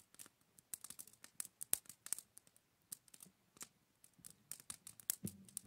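Applewood campfire and hot coals crackling faintly: irregular sharp pops and ticks, several a second.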